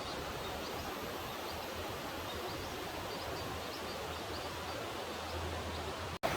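Steady rush of a fast-flowing mountain stream, with a brief break near the end after which it is louder.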